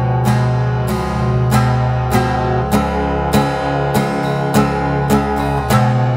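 Instrumental music: acoustic guitar chords strummed at a steady beat, a strum about every 0.6 seconds, with no singing.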